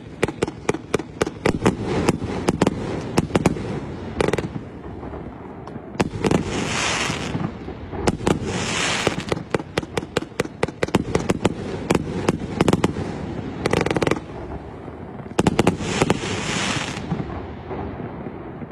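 Fireworks going off: rapid runs of sharp bangs and pops, broken four times by a hissing crackle that lasts a second or so.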